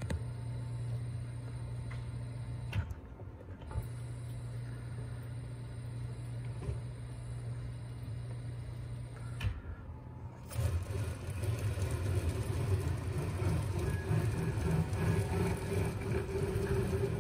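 Electric motor of a roller bed turning a rock drill core, running with a steady low hum. It stops briefly about three seconds in and again about ten seconds in, then runs louder and more unevenly to the end.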